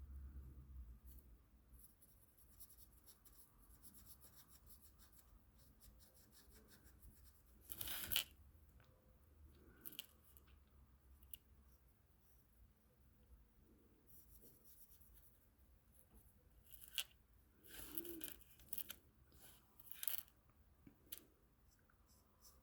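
Faint scratching of colouring on paper, broken by a few short, louder rustles and clicks of paper and tools being handled, the loudest about eight seconds in.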